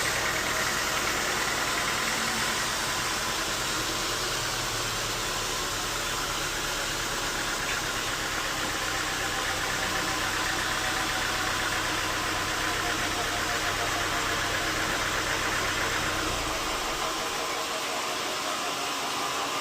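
Bandsaw sawmill running steadily, a continuous machine noise; its low hum drops away about three-quarters of the way through.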